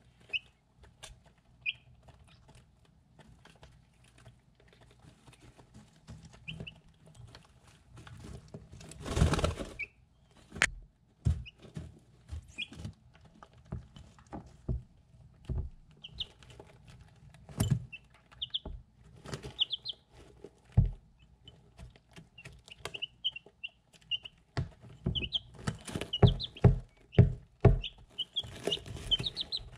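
Three-week-old chicks pecking at food in a ceramic bowl: irregular sharp taps of their beaks on the bowl, with short high peeps here and there that come more often near the end. A brief louder rustle about nine seconds in.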